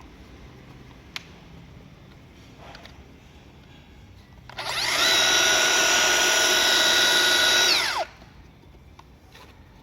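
Makita HR005G 40V rotary hammer running in a single burst of about three seconds: it spins up quickly, holds a steady high whine, then winds down when released.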